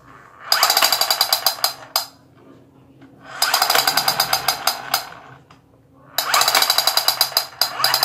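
Toy assault rifle's electronic machine-gun sound effect, a rapid rattle of shots, fired in three bursts as the trigger is held: the first about half a second in, the next around three and a half seconds in, the last a little after six seconds in.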